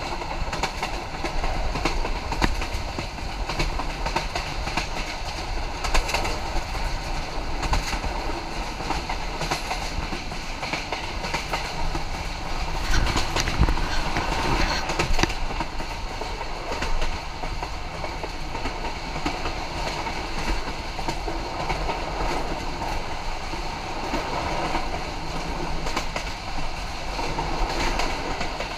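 Sonar Bangla Express passenger train running at speed, heard from aboard: a steady rumble with the clickety-clack of the wheels over the rail joints, growing louder for a couple of seconds about halfway through.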